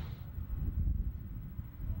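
A taxiing jet airliner's engine hiss cuts off abruptly a moment in. What remains is a low, gusty rumble of wind on the microphone.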